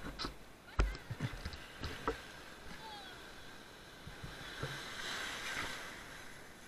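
Sea waves at the shore: a few short knocks and bumps in the first couple of seconds, then a wave washing in, swelling and fading between about four and six seconds in.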